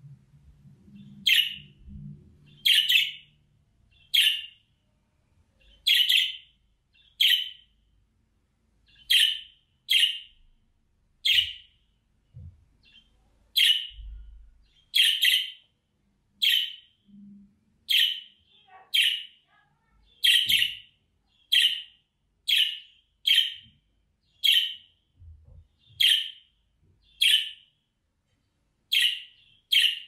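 Budgerigar calling: one short chirp after another, roughly once a second, each much like the last.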